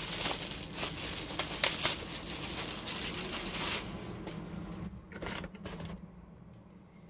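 Thin plastic packaging bag crinkling and rustling as a folded T-shirt is worked out of it. The crinkling fades after about four seconds, and a few brief rustles of handling follow about five seconds in.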